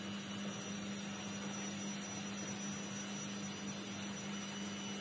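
Steady low hum with a faint high whine above it, unchanging throughout: room tone with no distinct events.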